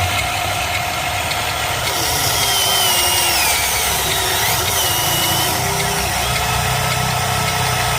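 Motors of a radio-controlled model excavator and dump truck running with a steady mechanical hum, and whines that rise and fall in pitch as the machines work.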